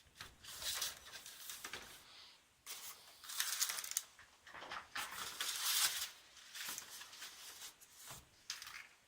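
Packaging being handled during an unboxing: irregular rustling and crinkling with a few short scrapes, coming and going in uneven bursts.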